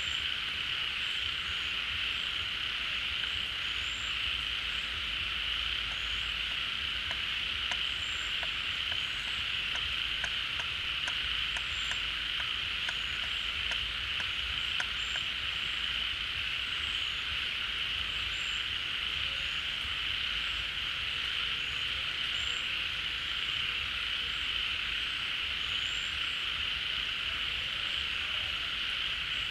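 A chorus of many frogs calling at once at a pond, in the rainy-season breeding rush when water fills the pond: a dense, steady din. Small high chirps come and go above it, and a stretch of rapid ticking runs through the middle.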